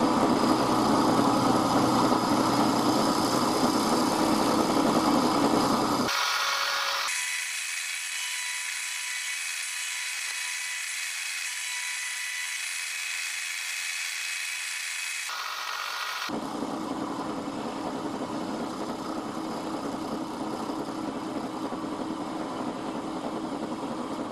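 Milling machine running with an end mill cutting a metal workpiece held in the vise, a steady whirring machine sound. It is loudest for the first six seconds or so, then thins to a hiss for about ten seconds before the fuller, quieter running sound returns.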